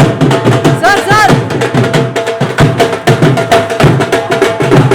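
Background music with fast, busy percussion and a melody line whose notes bend up and down in pitch.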